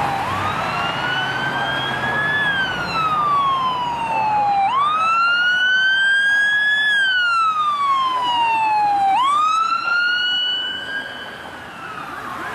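Emergency vehicle's electronic siren on a slow wail: three cycles, each snapping up, climbing slowly and then sliding down, about four and a half seconds apart. It grows fainter near the end.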